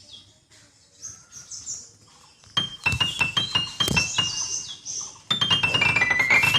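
Faint bird chirps and tweets, then about two and a half seconds in a light piano tune starts with bright struck notes, ending in a run of falling notes while the chirps carry on.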